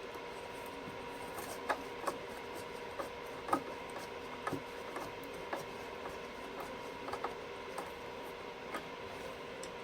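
Light, irregular clicks and faint rubbing from a screwdriver working screws on a vacuum cleaner's plastic housing, with the parts being handled, over a faint steady hum.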